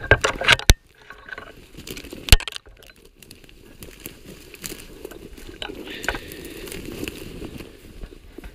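Sharp knocks and clicks of the camera being handled, several in the first second and one loud one a little over two seconds in. Then a steady rustling crunch of movement through snow-covered brush.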